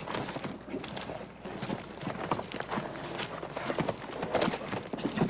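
Hooves of an unbroken horse pounding in an irregular clatter as it bucks and plunges under its rider.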